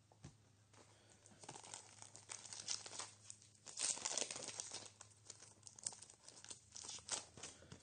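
A trading card pack wrapper being torn open and crinkled in the hands, in irregular crackling spurts.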